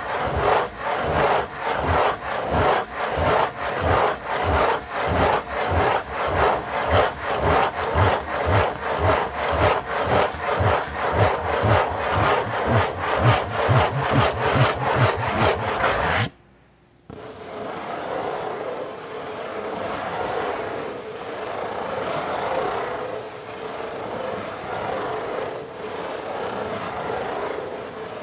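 Fingernails scratching in circles on the lid of a corrugated cardboard Pizza Hut pizza box, in even strokes about twice a second. About sixteen seconds in it drops out for a moment, then returns as softer, more continuous scratching.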